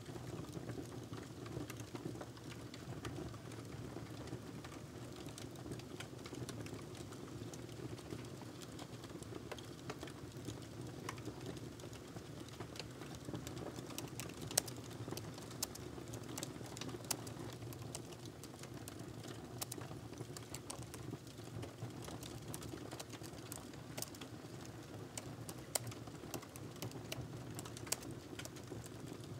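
Faint, irregular clicking of typing on a laptop keyboard, growing busier about halfway through, over a steady low background hum.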